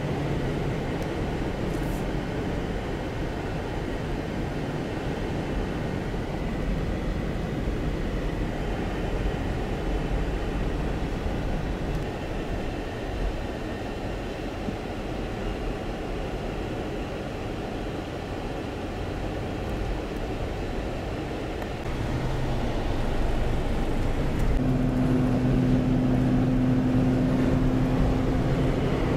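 Car driving at highway speed, heard from inside the cabin: a steady rush of tyre and engine noise. About three quarters of the way through it gets louder, and a steady low hum joins near the end.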